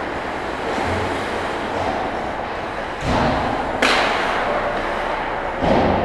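Ice hockey play heard close to the goal: a steady scrape and hiss of skates on the ice, with a dull thud about three seconds in, a sharp crack of stick or puck a little before four seconds, and another thud near the end.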